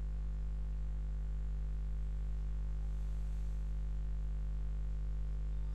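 Steady low electrical hum under a faint hiss, with no voice. It is the noise floor of the webinar recording while the presenter's audio has dropped out.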